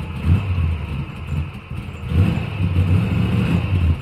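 A motor vehicle engine revving in repeated surges, rising and dropping about once a second.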